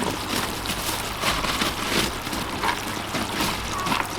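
Water trickling and splashing in an aquaponic grow bed, an uneven running-water sound with scattered small splashes.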